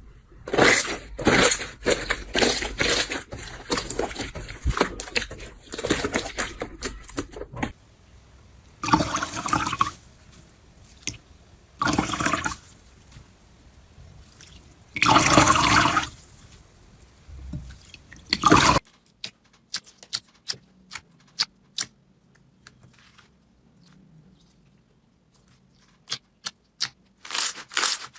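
Slime being squeezed and pressed by hand. First comes a stretch of dense sticky crackling, then three loud wet squelches a few seconds apart, then sparse crisp little pops and clicks.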